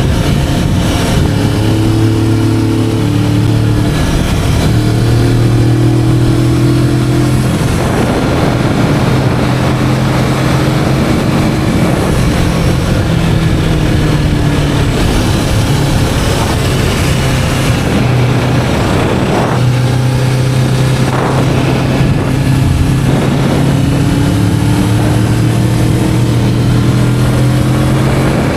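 Kawasaki Vulcan S 650's parallel-twin engine on its stock exhaust, running under way. The engine note rises and falls several times as the revs change. Heavy wind buffeting on an action camera's built-in microphone covers much of it.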